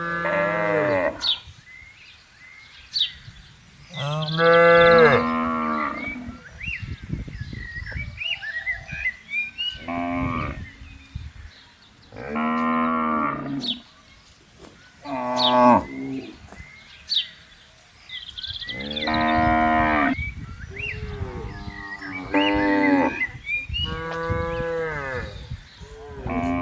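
Cattle mooing again and again, about eight long moos of one to two seconds each, the calls differing in pitch from one to the next.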